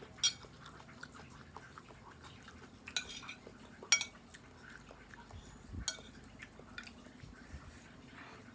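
Metal cutlery clinking and scraping against a ceramic plate while noodles are stirred and twirled up. A few sharp clinks are spread through it, the loudest about four seconds in.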